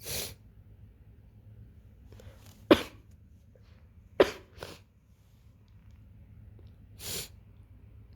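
A person with a runny nose from a head cold sniffling and coughing: a sniff at the start, two sharp coughs about a second and a half apart, the second with a smaller one right after, then another sniff near the end.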